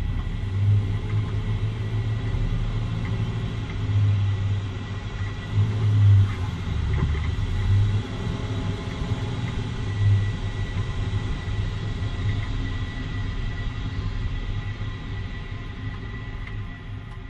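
2013 Jeep Wrangler Unlimited driving, a steady low rumble with a few louder low thumps spread through it.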